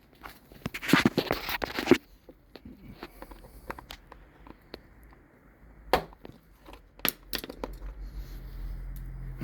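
Plastic scraping and crunching as a Kawasaki Ninja 125's plastic body panels and push-in clips are worked loose by hand, loudest about a second in, followed by a few sharp clicks.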